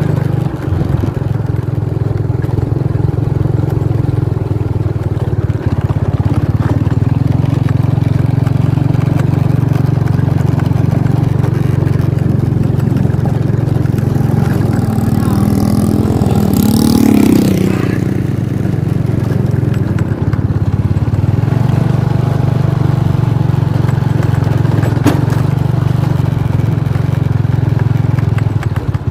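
Steady low drone of a vehicle on the move: engine and road noise. Another vehicle passes close a little past halfway, swelling and fading.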